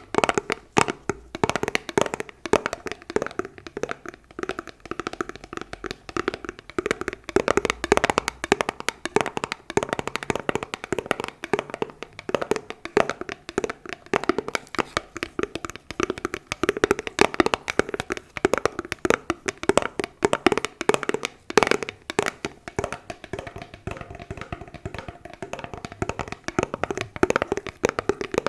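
Fast, uneven ASMR tapping of fingers on hard objects, many taps a second with no pause.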